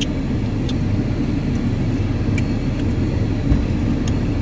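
Steady low rumble of a car's engine idling, with a few faint short clicks over it.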